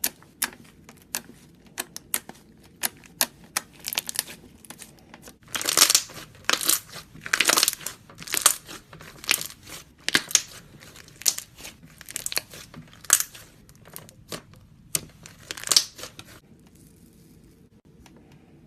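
Slime being pressed, poked and stretched by hand, giving a rapid run of sharp sticky clicks and crackling pops that bunch into louder clusters and stop near the end.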